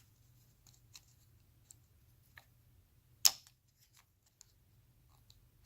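Small plastic clicks and taps from handling a ribbon cable and its connector during fitting, with one sharper, louder click a little past three seconds in.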